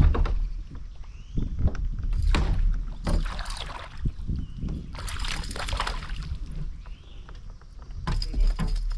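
Water splashing and sloshing around a fishing kayak, with scattered knocks against the hull.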